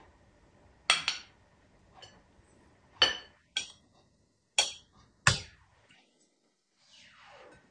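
A plastic rice paddle knocking against a glass bowl while cooked rice is scooped out onto a plate: about six sharp clinks, spread unevenly, with quiet between them.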